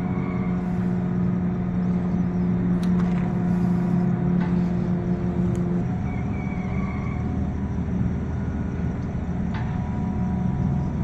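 Steady low mechanical hum and rumble with several steady tones; the tones change about six seconds in. A few faint clicks sit above it.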